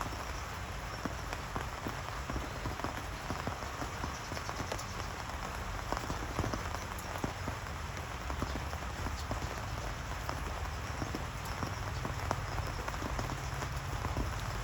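Steady rain falling, with many small raindrop taps hitting surfaces.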